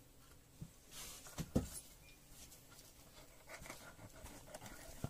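Quiet scraping and cutting of a small knife working on small river fish being cleaned by hand, with a few short knocks, the loudest about a second and a half in.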